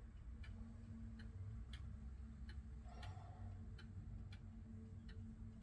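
Weight-driven 8-day movement of a 1973 Warmink Friesian tail wall clock ticking steadily, about one and a half quiet ticks a second.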